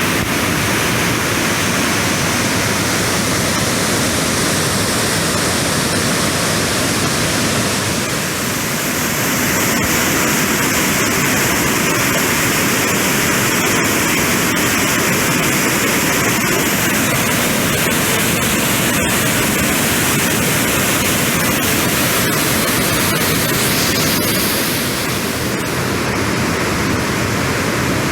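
A waterfall pouring, a loud, steady rushing of falling water.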